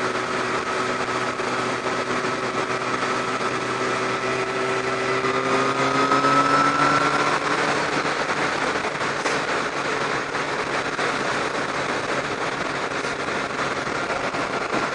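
Kawasaki ZX-12R inline-four engine cruising at about 70 mph and under 4,000 rpm, heard under steady wind and road noise. The engine note swells and rises a little about six seconds in, then sinks back into the wind noise.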